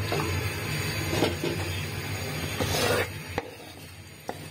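A spoon scraping and clicking against chicken pieces in thick curry and the pan as they are ladled onto a bed of cooked rice. The loudest scrape comes just before the three-second mark, with sharp clicks after it, over a steady low hum.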